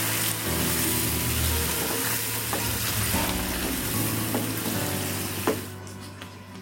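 Pullagura curry simmering and sizzling in a nonstick pan while a wooden spatula stirs through it; the sizzling hiss fades away near the end.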